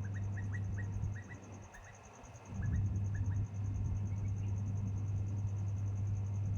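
An insect trilling in steady, fast, even pulses, with a run of short falling bird chirps in the first two seconds, over a steady low rumble that dips briefly about a second in.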